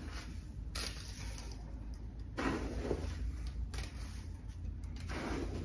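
Gritty bonsai soil, a mix of baked clay granules and composted mulch, scooped by hand from a tub and sprinkled into a bonsai pot: a few short, soft rustling pours.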